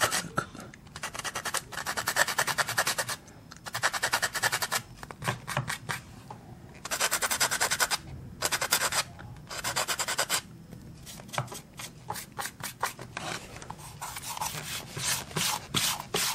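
Quick, light back-and-forth strokes of a small rolled-up piece held in the fist, rubbing on wooden flooring. They come in bursts of a second or two with short pauses between them, and turn into more separate strokes near the end.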